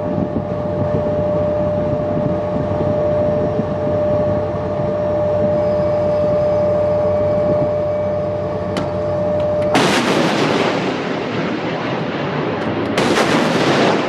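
Rolling Airframe Missile launch from a shipboard launcher: a steady background with one held tone, then about ten seconds in the rocket motor ignites with a sudden loud rushing blast that lasts about two seconds. A second rushing blast follows about three seconds later.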